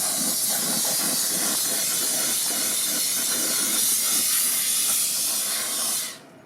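An aerosol spray can hissing in one continuous spray of about seven seconds, stopping fairly abruptly near the end.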